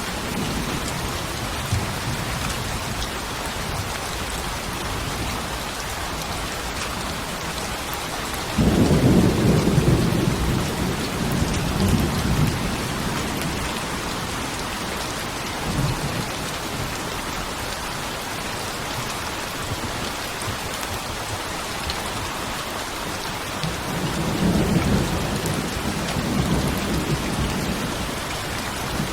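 Steady rain hissing on a surface, with thunder: a sudden loud rumble about eight seconds in that rolls on for several seconds, and a second rumble near the end.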